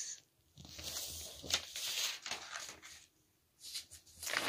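Soft rustling and handling noise with a few light knocks, broken by a brief silence past the middle.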